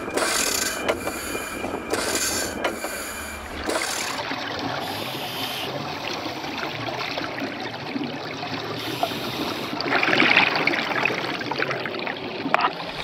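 Hand-worked diver's air pump running, its brass rods and cranks clanking and squeaking stroke by stroke for the first few seconds. It then gives way to a steady underwater bubbling and hiss of air escaping from the diving helmet, which grows louder near the end.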